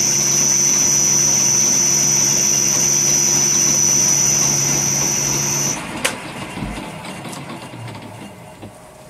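Three-phase milling machine on a frequency drive, spinning a grinding wheel: a steady high whine over a low hum. A little over halfway through the drive is switched off, a click follows, and the sound fades gradually as the spindle coasts down.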